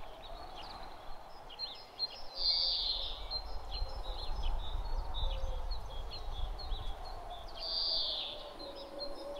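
Outdoor nature ambience of birds chirping over and over in short calls, with two louder, rougher calls about two and a half seconds in and again near the end. Beneath them run a faint wavering hum and a low rumble.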